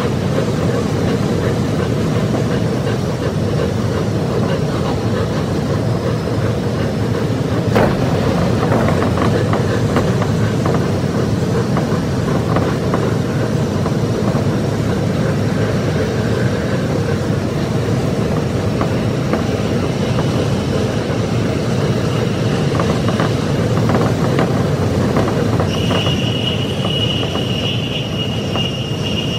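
Tsukuba Express electric train running at speed, heard from inside the driver's cab and sped up to double speed: a steady running noise of wheels on rails. A single sharp knock comes about eight seconds in, and a steady high whine joins near the end.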